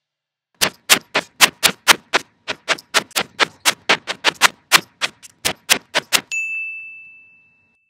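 Typewriter keystrokes clacking at an uneven rate of about four a second, then a single bell ding near the end that rings and fades out.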